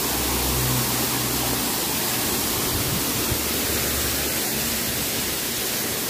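Waterfall with water falling into a pool, a steady rushing hiss, with a low rumble underneath for the first four seconds or so.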